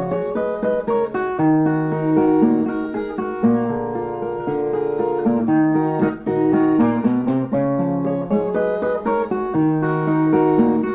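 Instrumental break of a sung ballad: a viola caipira, the Brazilian ten-string folk guitar, plays a melody of quick plucked notes without singing.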